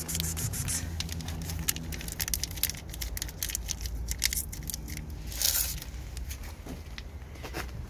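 Scraping and crackling of someone moving among dry leaves, boards and debris, many small clicks with a brief louder rustle about five and a half seconds in, over a low steady hum.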